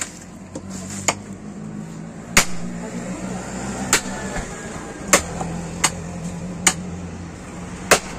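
Butcher's cleaver chopping buffalo meat: sharp blows about once a second, eight in all, irregularly spaced, over a low steady hum.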